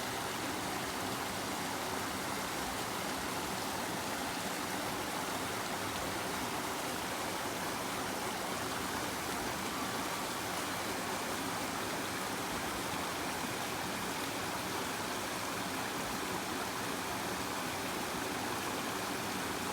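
River water flowing and rushing over rocks in a steady, unbroken wash.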